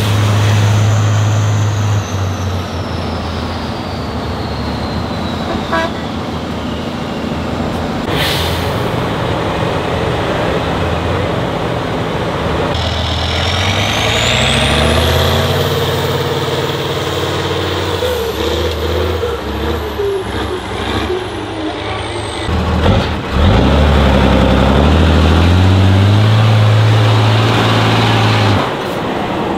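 Heavy off-road trial truck's diesel engine running and revving, its pitch climbing and dropping. A high whine falls in pitch over the first few seconds, and another rises steeply about halfway through, then slowly falls away. A single sharp crack comes about eight seconds in.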